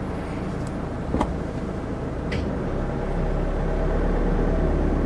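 Camper van engine pulling under load as the all-wheel-drive van drives up out of a wet grassy slope, its low rumble growing louder about three seconds in. Two brief faint clicks about one and two seconds in.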